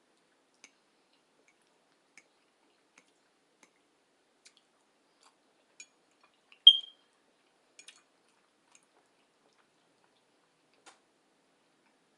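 Sparse, soft clicks of chewing and mouth noises while eating tofu and vegetables, with one sharp, briefly ringing clink about seven seconds in.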